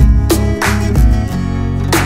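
Background music: strummed acoustic guitar chords over a bass line, struck about every half second.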